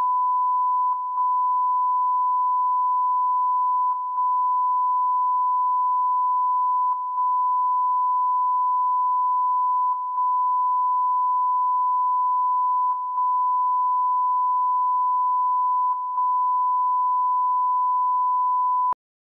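Broadcast line-up test tone played under colour bars: a steady, single-pitch beep-like tone, briefly dipping about every three seconds in the manner of the EBU stereo line-up tone's channel-identifying break. It cuts off suddenly about a second before the end.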